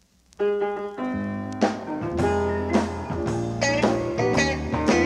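Instrumental opening of a gospel song, before the vocal comes in: the music starts sharply about half a second in, with notes and chords struck at a steady pace.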